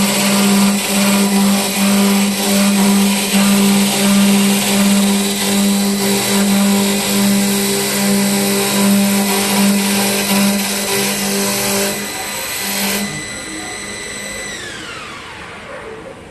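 KC1512-3S CNC wood lathe running: a steady motor hum under a loud rush of cutting noise. About thirteen seconds in the cutting noise stops, and soon after a high whine falls steadily in pitch as the machine winds down.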